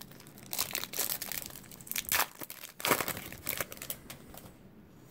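Foil wrapper of a 2017 Topps Series 2 baseball card pack crinkling and tearing as it is ripped open, in a run of sharp crackly bursts over about three seconds, loudest near the middle.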